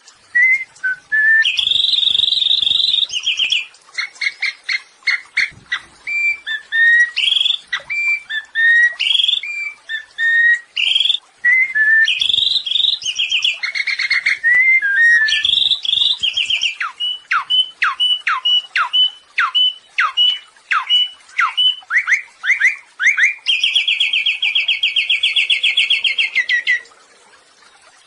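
Samyong songbird singing a long, varied song: short whistled notes and buzzy trills, then a quick series of sharply falling whistles, and near the end a long, fast rattling trill.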